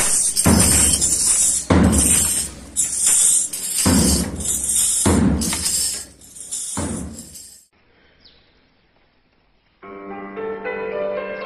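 Procession drums beating a steady march rhythm, about two heavy strokes a second, each with a bright snare-like rattle. They stop a little before eight seconds. After a short near silence, piano or keyboard music begins near the end.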